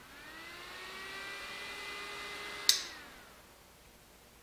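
Small 12-volt electric fans on a dirt bike, running off a homemade battery pack: a whir that rises in pitch as they spin up, then holds steady. About two and a half seconds in a sharp click, the loudest sound, comes, and the whir falls in pitch and dies away as the fans spin down.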